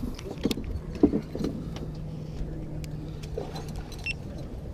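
Low steady hum of a boat motor under a low rumble, with a few sharp knocks and clatters on the fibreglass boat as a netted musky is handled in the first second and a half.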